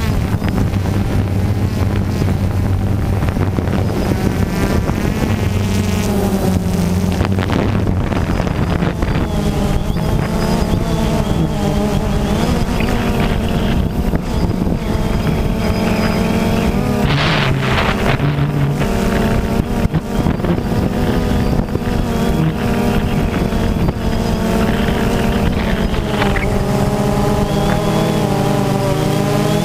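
DJI Phantom 2 quadcopter's brushless motors and propellers buzzing steadily, close up, as heard from the camera on board, the pitch drifting up and down as the throttle changes. Some wind noise on the microphone.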